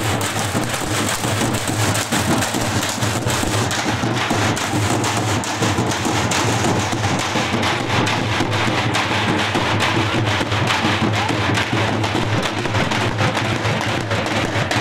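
A group of large drums with white heads, beaten with thin sticks in a fast, dense, unbroken run of strokes.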